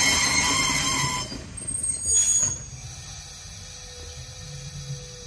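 Taiwan Railways Chu-Kuang/Fu-Hsing passenger coaches being propelled slowly backwards into a siding, their wheels squealing in a chord of high steady tones. The squeal stops about a second in. A brief louder screech comes around two seconds in, then only a low rumble of the slowly rolling coaches with a faint steady whine.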